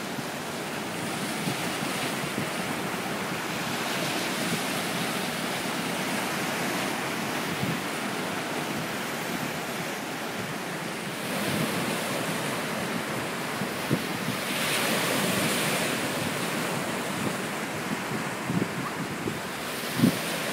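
Atlantic surf breaking and washing over a rocky shore ledge: a continuous rushing wash that swells several times as waves break against the rocks.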